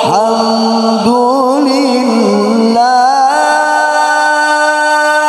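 A male qari reciting the Quran in the melodic tilawah style: ornamented, wavering runs for about three seconds, then a long steady held note.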